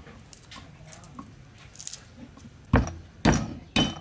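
Light clicks as garlic cloves are handled and peeled. Then three heavy knocks about half a second apart, a cleaver coming down on garlic on a thick wooden chopping block.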